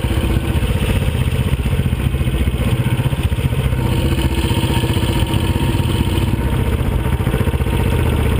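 Large single-cylinder four-stroke enduro motorcycle engines idling together: a steady, low, rapid pulsing, with the camera bike's own engine closest.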